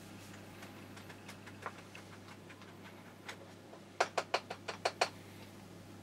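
Rhinowares hand coffee grinder being handled and taken apart: a few faint clicks, then about seven sharp clicks in quick succession a little past the middle.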